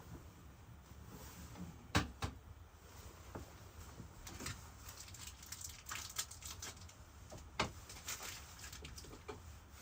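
Irregular light clicks and taps, with two sharper knocks, one about two seconds in and one past the middle.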